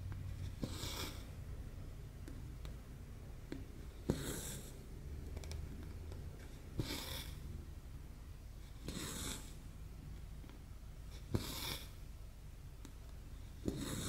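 Embroidery floss drawn through cross-stitch canvas: a short rasping swish about every two and a half seconds, five pulls in all, most of them just after a small tick of the needle going through the fabric. A steady low hum lies underneath.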